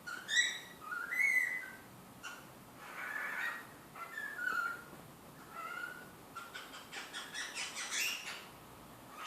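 Cockatiel whistling and chirping: a string of short notes sliding up and down in pitch, then a quick run of about five short chirps a second near the end.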